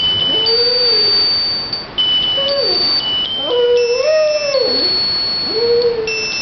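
A Dalmatian howling along to music: four drawn-out howls that rise, hold and fall in pitch, over a string of high, held electronic tones that step from note to note like a melody.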